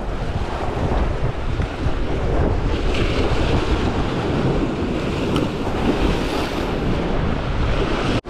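Waves breaking and washing against the rocks of a stone jetty, with strong wind buffeting the microphone. The sound cuts off abruptly at the very end.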